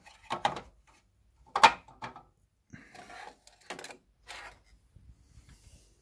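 Cover of a rack server being handled and set in place on the chassis: a string of short, sharp plastic and metal knocks and clicks, the loudest about a second and a half in.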